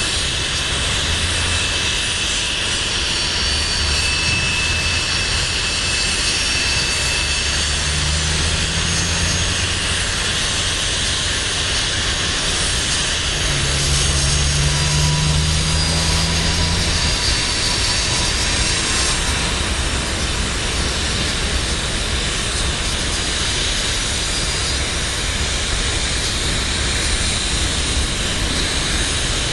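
Freight train cars rolling past: a steady roar of steel wheels on rail, with faint thin high squeals in the first half and a low hum that swells twice around the middle.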